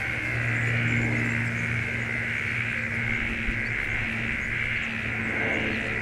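Steady, high-pitched chorus of insects, with a low steady hum beneath it.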